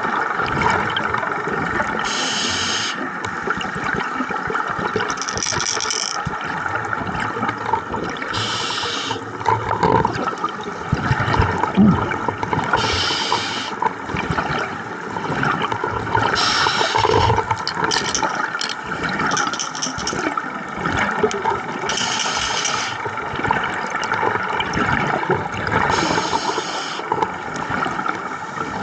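Scuba regulator breathing heard underwater: a bubbly rush of exhaled bubbles every three to five seconds over a steady water noise.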